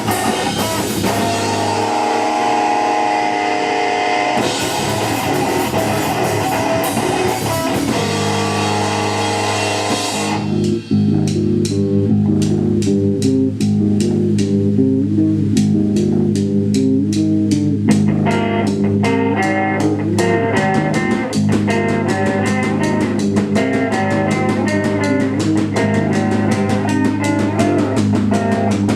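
Live math-rock band of electric guitars, bass guitar and drum kit playing loudly. It starts full with cymbals washing over the band, then about eleven seconds in drops to a repeating picked guitar figure over bass with sharp, even ticks from the drums. A few seconds later a higher guitar line joins.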